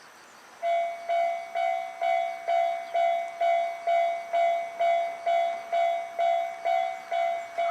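Japanese railway level crossing alarm starting up about half a second in, then ringing its repeated 'kan-kan' tone about twice a second, the signal that a train is approaching.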